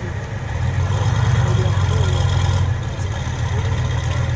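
Engine of a reproduction StuG III tank destroyer, built from other armored vehicles, running as it drives slowly past: a steady low rumble that grows louder about half a second in and eases slightly near three seconds.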